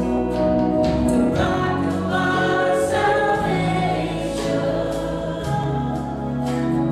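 Live church worship band playing: several voices singing together over drums, keyboard, acoustic guitar and bass guitar, with a steady beat of drum and cymbal hits.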